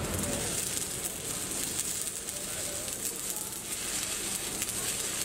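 Electric arc welding on the steel of an excavator bucket: a steady crackling, sizzling hiss from the arc as a weld bead is laid.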